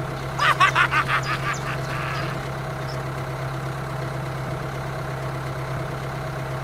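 A steady low mechanical hum, like a small motor running. Over it, from about half a second to two seconds in, comes a quick run of short, sharp honking or quacking calls, about five a second.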